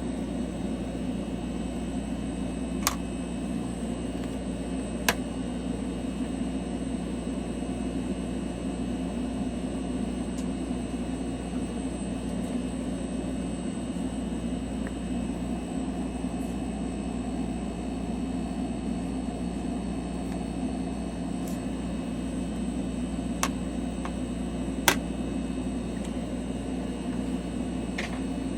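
Steady electric machine hum with a low drone, unchanging throughout, broken by a few short sharp clicks, twice near the start and a few times near the end.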